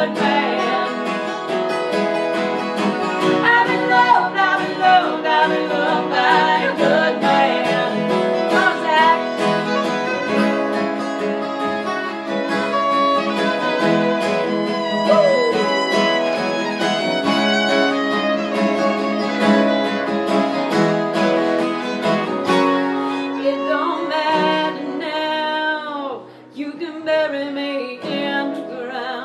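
Acoustic Americana band playing live: two acoustic guitars strummed and a fiddle bowed, with a woman singing.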